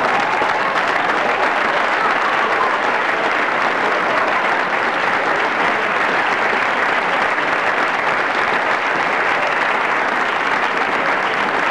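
Steady applause noise, dense and even throughout, cutting in abruptly just before and covering the sound of a man throwing up.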